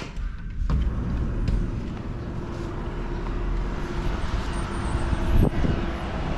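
A click as the balcony door opens, then steady city traffic noise heard from a high balcony, with a low rumble and a faint steady hum. The noise swells briefly about five seconds in, as from a passing vehicle.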